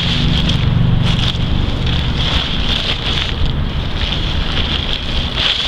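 Wind buffeting the microphone: a loud, steady rushing rumble, with a continuous high-pitched hiss running under it.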